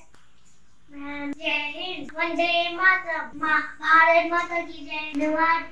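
A young boy singing, with long held notes, starting about a second in.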